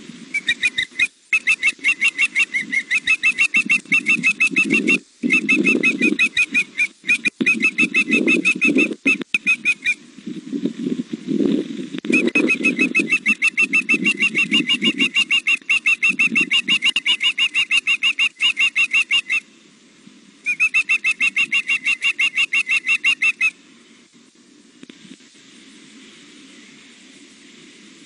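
Young osprey food calling: long runs of rapid, high, repeated chirps, several a second, in three bouts that stop a few seconds before the end. A low rushing noise runs underneath, strongest in the first half.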